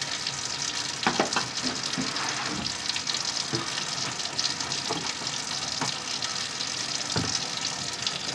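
Scattered light clicks and knocks of seasoning containers being handled, over a steady hiss.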